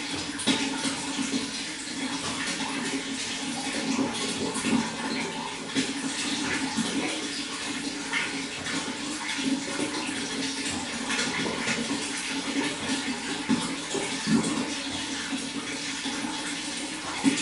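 Running water: a steady rush with many small, irregular splashes and gurgles.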